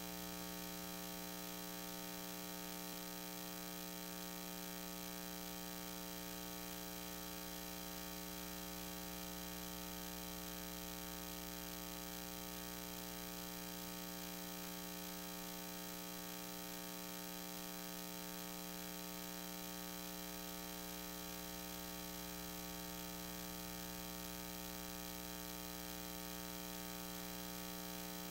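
Steady electrical mains hum with a faint hiss, unchanging throughout; no speech or music.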